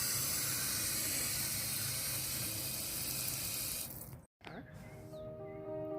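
Water pouring in a steady stream from a watering can onto the plants. It stops abruptly about four seconds in, and soft music starts near the end.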